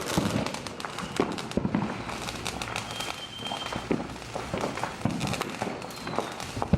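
Consumer fireworks crackling: a dense, irregular run of sharp pops, with one louder crack at the very end.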